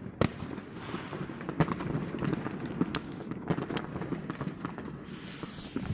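Fireworks going off: irregular sharp bangs and crackles over a low rumble. A high hiss starts about five seconds in.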